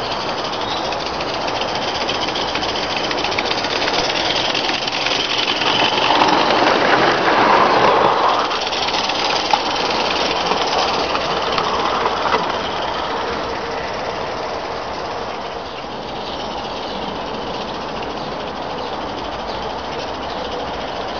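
Mamod live-steam garden-railway locomotive running with a fast, steady exhaust beat and hiss, its wagons rattling on the 32 mm gauge track. It is loudest as it passes close, about a third of the way in, then fades as it runs away.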